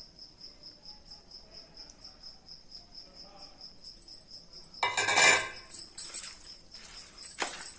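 A cricket chirps in an even, rapid pulse. About five seconds in, a steel spoon stirs and scrapes loudly through oily, spice-coated beans in a plastic bowl, with another short scrape near the end.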